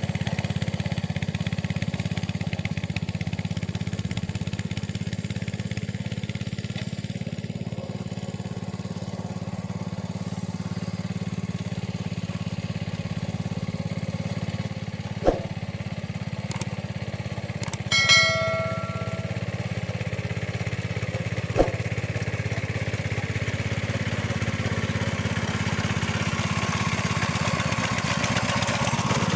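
Old engine of a Capung Metal mini paddy-field tractor running steadily while plowing, growing louder near the end. Two sharp knocks about halfway and two-thirds through, and a brief ringing tone in between.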